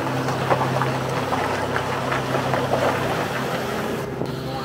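Van driving on a gravel road: the engine runs with a steady drone while the tyres crunch over loose stones, with many small clicks of gravel through it.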